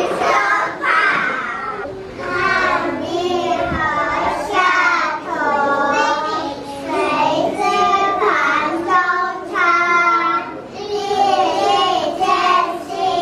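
A group of young children reciting a nursery rhyme together into a microphone in a sing-song chant.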